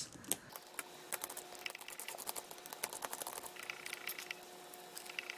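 Small Phillips screwdriver turning the tiny screws of a phone's sliding-keyboard mechanism: faint, irregular light clicks and ticks of metal tip on screw heads.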